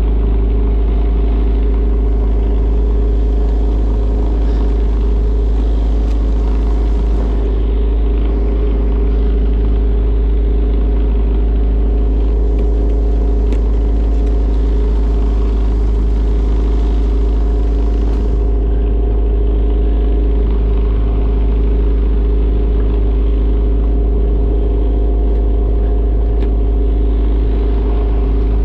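Fishing boat's engine running steadily at a constant speed, a loud, even drone with a deep rumble.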